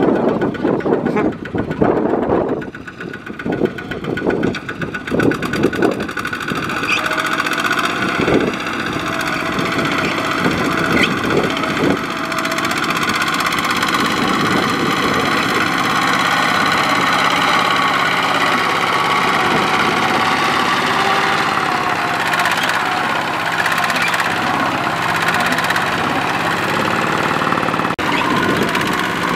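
Single-cylinder diesel engine of a two-wheel walking tractor working hard as it drags a loaded trailer through deep mud. For the first six seconds or so it comes in uneven, heavy strokes, then it settles into a steady drone.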